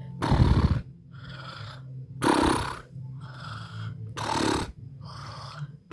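Snoring: three loud snores about two seconds apart, each followed by a softer breath out, over a steady low hum.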